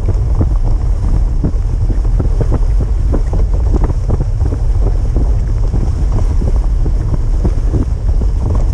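Wind buffeting the microphone of a dog sled moving at speed over packed snow, with a constant irregular patter of small knocks and scrapes from the ride over the rutted trail.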